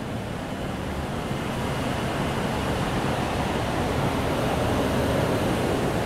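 Steady rumble and rush of a passenger train running, heard from on board, growing slightly louder.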